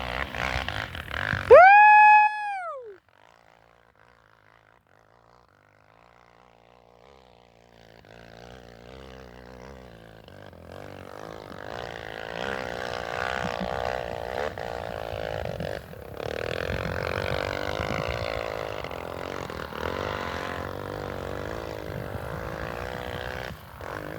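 Dirt bike engine revving unevenly under load, its pitch rising and falling as it works, building in from about eight seconds in after a short lull. About two seconds in there is a loud brief tone that rises, holds and falls away.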